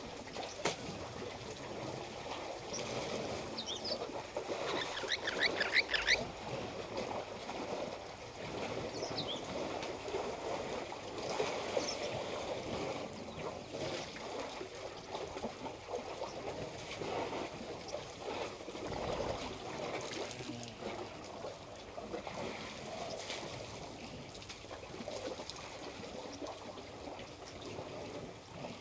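African bush elephants drinking at a waterhole: water sloshing and splashing around their trunks and feet. A quick run of bird chirps comes about five seconds in, with a few more later.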